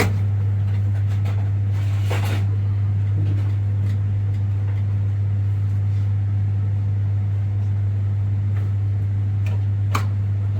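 Steady low electrical hum at mains frequency, with a few light knocks and a brief rustle about two seconds in and a sharp click near the end.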